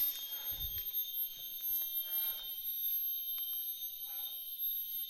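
Rainforest insects keeping up a steady, high-pitched chorus of continuous buzzing tones.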